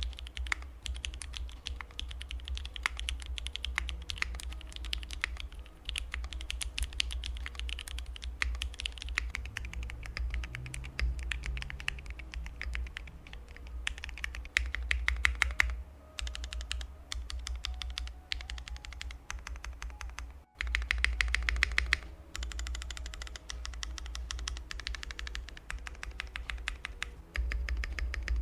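Fast typing on a keyboard, a dense run of key clacks, heard in turn with ABS double-shot, PBT double-shot and ceramic keycaps. There is a clean break between takes about twenty seconds in.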